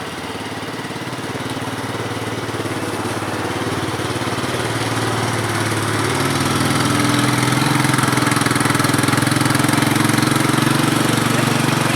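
Honda 250SX three-wheeler's four-stroke engine running under load while towing a broken-down quad; it grows louder through the first half and holds steady and louder from about halfway.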